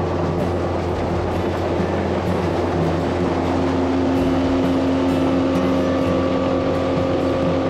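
Boat's outboard motor running steadily as the boat travels, a constant drone with no change in speed.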